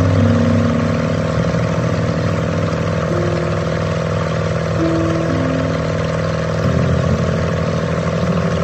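Wooden runabout's inboard engine running steadily at speed, with water rushing and churning in the wake. The engine note thickens about seven seconds in.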